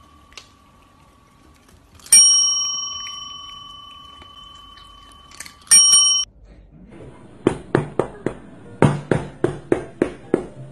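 Chrome desk bell (service bell) still ringing from a strike, pressed again by a cat's paw about two seconds in and ringing out slowly, then struck once more and cut off short about six seconds in. After that comes a quick run of sharp slaps, about four a second, as a cat bats at a plush toy.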